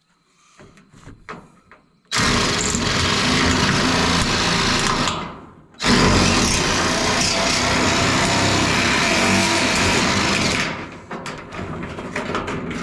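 Cordless power metal shears cutting a ribbed steel roofing panel: a loud, steady mechanical run that starts about two seconds in, pauses briefly near the middle, runs again, then stops, leaving lighter clicks near the end.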